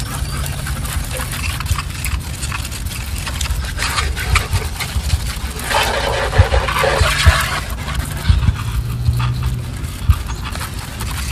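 Pressure washer running, its wand spraying water onto a lawn mower's deck and wheels: a steady low hum under the hiss of the spray, which grows louder for about a second and a half around six seconds in.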